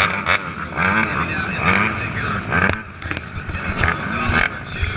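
Several ATV engines nearby, with repeated short revs whose pitch climbs and drops, over a steady engine din and crowd voices.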